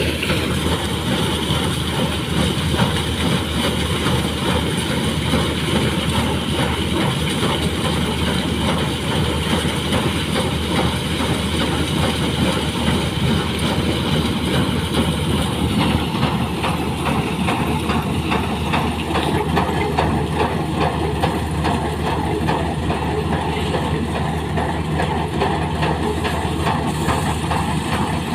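Combine harvester running steadily at close range, its engine and threshing works going continuously as the reel header moves over the sunflower heads to pick them up.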